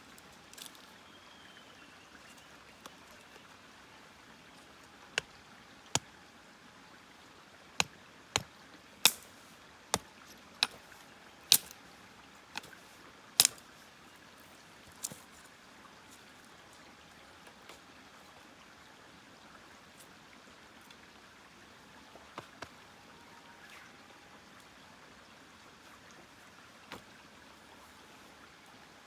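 Wood fire crackling: a dozen or so sharp, separate pops, most of them bunched between about five and fifteen seconds in, over a steady soft hiss.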